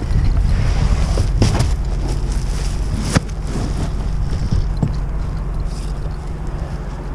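Wind buffeting the microphone in a steady low rumble, with a couple of sharp knocks about one and a half and three seconds in.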